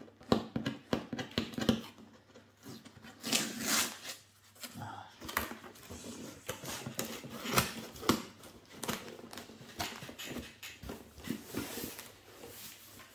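Cardboard box being pulled open and handled: irregular rustling, taps and clicks, with a few longer scraping swishes.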